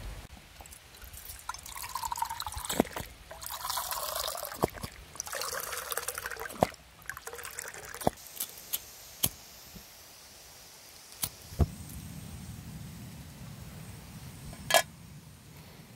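Water poured from a plastic bottle into an enamel mug, splashing and trickling in spells through the first several seconds. A few light clicks follow, with one sharper knock near the end.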